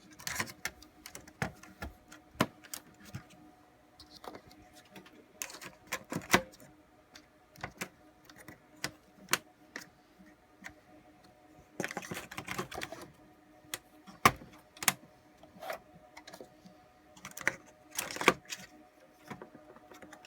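Irregular clicks and light knocks of plastic and metal parts being handled and pressed into place inside an HP ProLiant DL360e Gen8 server chassis, with a denser rattle about twelve seconds in. A faint steady hum lies underneath.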